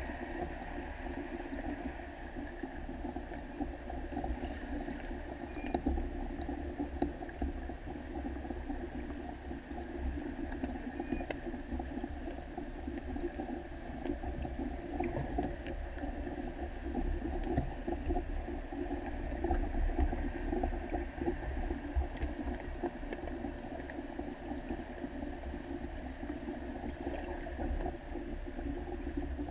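Muffled underwater ambience picked up through a waterproof camera housing: a steady low rumble and watery hiss with small irregular ticks and gurgles.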